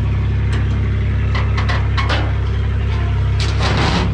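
Chevy S10 pickup's carbureted engine running at low revs, loud and low through an exhaust that has been cut off with no muffler, sounding like a tractor. The truck is being driven up onto a flatbed trailer, and there is a louder, noisier stretch near the end.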